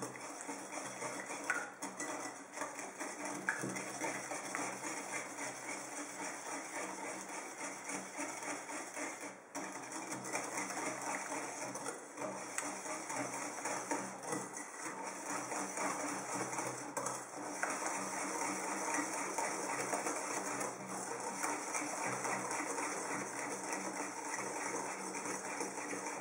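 Wire whisk beating eggs and sugar in a bowl, a fast, steady clatter of the wires against the bowl through the liquid: the mixture being whisked until pale.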